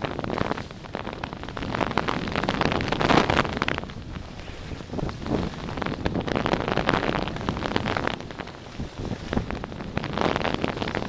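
Wind rushing over the microphone and skis hissing and scraping across packed snow during a downhill run, swelling and easing in several surges.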